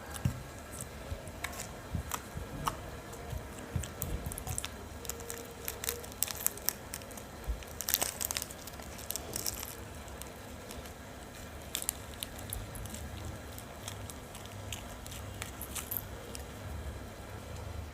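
Homemade slime being squished and worked by hand, making irregular small crackling clicks and pops.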